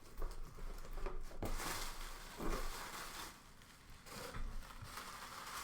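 A box and its packaging being opened by hand: scattered rustling, scraping and tearing sounds, busiest in the first half and thinning out after about three seconds.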